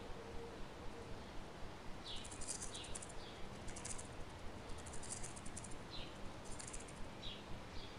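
A dragonfly's wings buzz faintly in four short, rapid bursts as it flies close past. Under them are repeated short chirps, like small birds.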